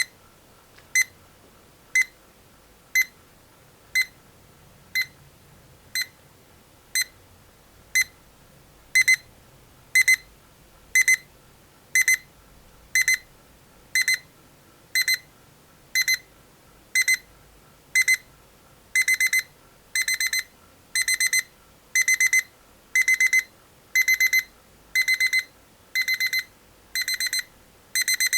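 Rhythm 8RZ238ND38 alarm clock's electronic alarm beeping at a high pitch about once a second. It steps up in stages: about nine seconds in each beep becomes a louder double pip, and from about nineteen seconds in it sounds in longer clusters of rapid pips.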